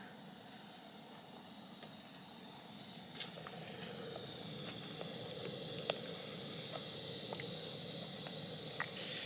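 Crickets chirping steadily in a high, continuous trill, over a low steady rush and a few light taps of a wooden spoon against an aluminium pot as barley grits are stirred into boiling water.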